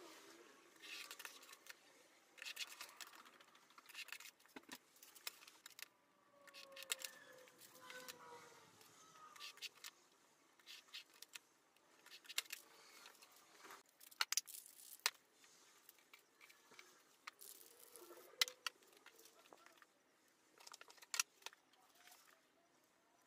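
Quiet, scattered clicks and short scrapes of a snap-off utility knife cutting paper along a steel ruler, with the metal ruler clinking and paper sheets being handled.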